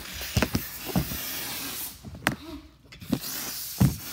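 Dust-Off canned-air duster spraying with a steady hiss. It is held tilted so the liquid propellant comes out and frosts the floor. The spray breaks off briefly a little under three seconds in, then resumes, with several sharp knocks and taps over it.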